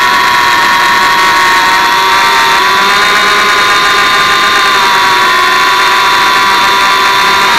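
Hubsan X4 micro quadcopter's four small motors and propellers whining steadily, heard close up through the onboard camera's microphone, the pitch dipping and recovering slightly a few times as the throttle shifts in a hover.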